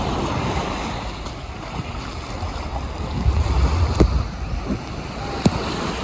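Small waves breaking and washing up on a sandy shore, with wind rumbling on the phone's microphone, strongest about three to four seconds in. Two short sharp clicks, about four and five and a half seconds in.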